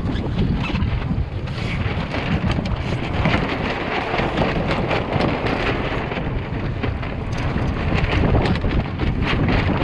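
Strong wind buffeting the microphone of a small open sailing boat under way in fresh wind, a steady rushing rumble, with water rushing and splashing against the hull in many short spatters.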